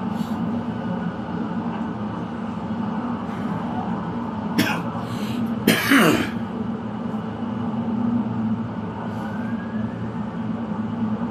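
A man coughing from cannabis smoke: a short cough about four and a half seconds in, then a longer, louder cough around six seconds, over a steady low hum.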